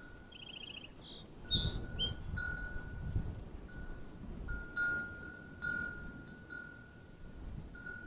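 A wind chime ringing on one steady note, struck again every second or two, with wind buffeting the microphone through the middle. Short high bird chirps and a brief fast trill come in the first two seconds.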